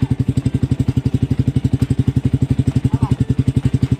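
Motorcycle engine idling through a newly fitted MVR1 aftermarket power pipe exhaust: a steady, even putt of about ten exhaust pulses a second.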